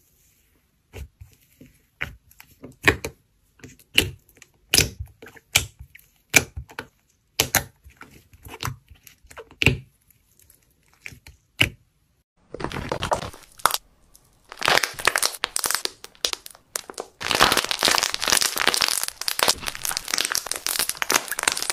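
Slime being pressed and squeezed by hand: a series of separate sharp pops and clicks, about one or two a second, as air pockets in the soft white slime burst. About halfway through it turns into a dense run of crackling crunches as a green slime is squeezed.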